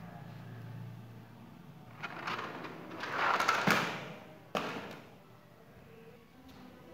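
Toy Lego bus rolling across a foam mat floor, making a rushing noise that builds and peaks about three to four seconds in. About four and a half seconds in comes a sharp thud as the big padded cushion it ran up against topples onto the mat.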